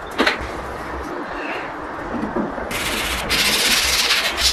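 Sandpaper rubbed by hand along a wooden slat: a soft click near the start, then from past halfway a loud, steady, scratchy rubbing.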